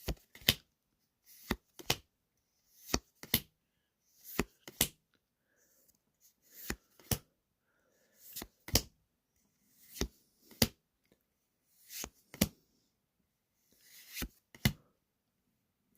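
Trading cards handled one at a time during a booster pack opening. The sound is a pair of short, sharp taps repeating about every second and a half.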